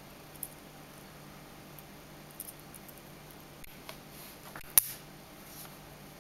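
Miniature stiletto keychain knife being handled in the fingers: a few light metal clicks, then one sharp, much louder click about five seconds in.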